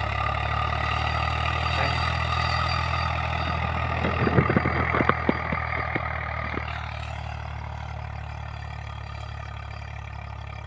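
Diesel tractor engine running steadily as it pulls a tined cultivator through the field, getting quieter after about seven seconds as it moves away. A cluster of sharp knocks between about four and six seconds in is the loudest part.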